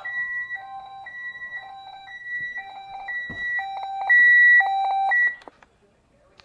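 Weather alert radio's alarm beeping, alternating a high and a low tone about once a second, loudest about four seconds in, then cutting off suddenly about five seconds in.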